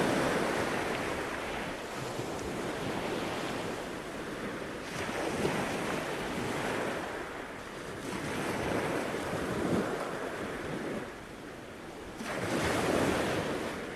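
Surf breaking on a beach, with waves swelling and washing in every few seconds.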